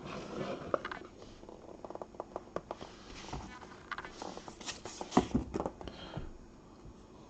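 Faint rustling and light tapping of trading cards being handled and slid against one another, with a short cluster of louder taps about five seconds in.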